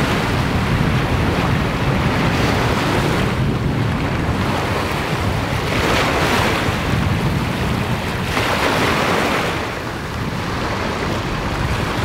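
Lake Superior surf breaking and washing up a sand beach, a wave surging in about every three seconds, with strong wind buffeting the microphone.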